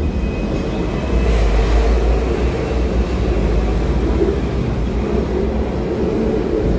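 Hong Kong double-decker tram running along its rails, a steady low rumble of motor and wheels heard from on board.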